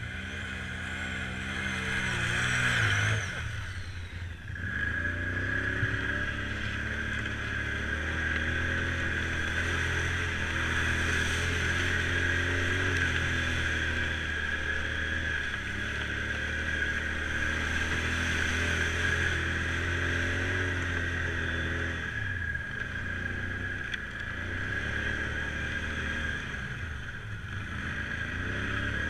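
ATV engine running as it is ridden. It revs up over the first few seconds, drops off briefly, then holds a steady pace with a few small rises and falls in pitch, under a steady high whine.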